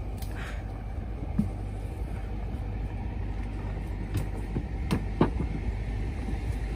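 Steady low rumble, with a few short sharp snaps and rustles as leafy branches are pulled and handled, the loudest two close together a little after the middle.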